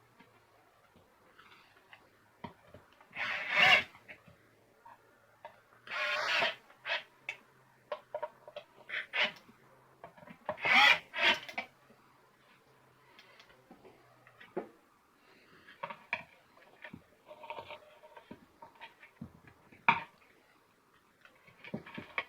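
Handling of drainage pump parts being reassembled: three loud rubbing, scraping noises and scattered clicks and knocks, over a faint steady low hum that stops about two-thirds of the way through.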